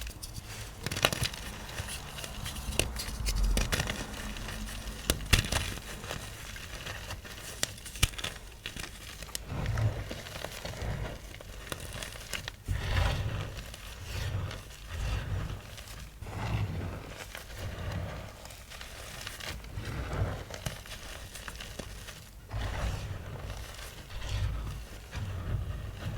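Small blocks of gym chalk (magnesium carbonate) being crushed, crunching and crumbling with crackly snaps. From about halfway on the crushing comes in regular squeezes, roughly one a second.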